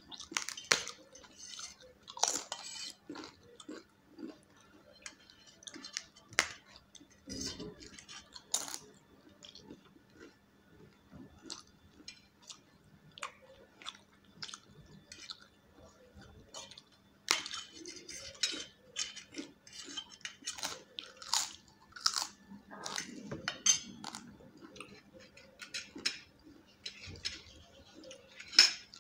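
Close-up crunching and chewing of crisp papad, with sharp cracking bites at irregular moments throughout. Now and then a fork clinks or scrapes on a steel plate.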